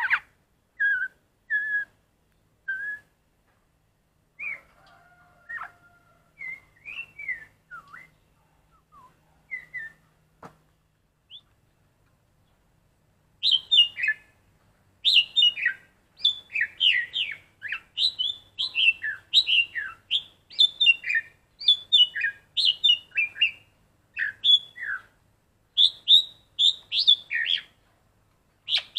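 Black-collared starling singing: a few scattered whistled notes at first, then from about halfway a long run of loud, quick whistles and chirps.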